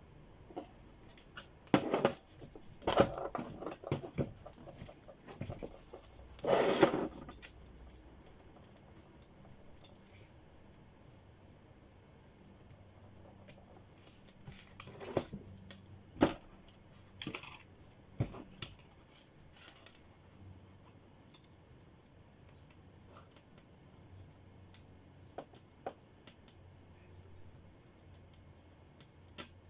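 Irregular clicks, taps and scrapes of small hard objects being handled at a workbench, with a longer scraping rub about seven seconds in and sparser clicks after.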